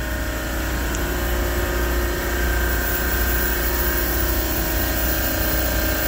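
Refrigeration compressor rack running, giving a steady mechanical hum with a low drone and a few constant tones.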